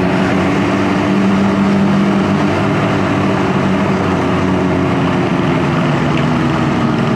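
KTM Duke 390's single-cylinder engine running at a steady low road speed, heard from the rider's seat over a steady rush of noise.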